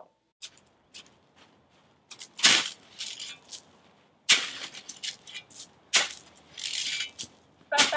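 A shovel scraping and crunching into garden soil and dry leaves in three separate digging strokes a couple of seconds apart, with a few faint clicks before the first.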